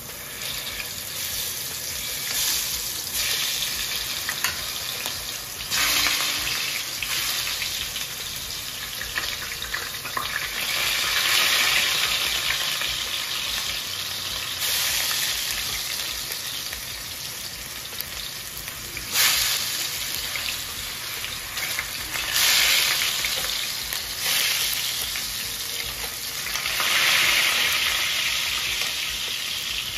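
Potato rounds frying in olive oil in a stainless steel sauté pan, a steady sizzle that swells in surges each time a potato is turned over with metal tongs, with a sharp clack about nineteen seconds in.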